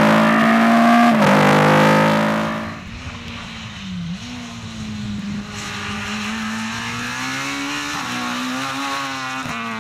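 Rally car engine heard from inside the car, revving hard with a gear change about a second in. After a sudden cut near three seconds comes the engine of a first-generation Renault Clio rally car driving past at high revs, its pitch rising and dipping a little.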